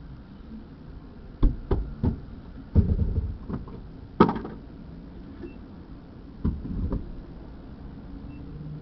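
A series of irregular knocks and thumps, about seven in all, the loudest about four seconds in, over a low steady rumble of traffic.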